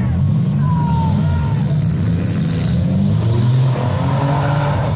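Demolition derby cars' engines running and revving, a loud low rumble that rises and falls.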